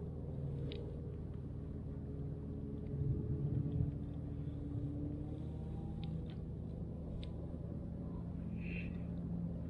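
Steady low motor rumble, with a few faint sharp clicks.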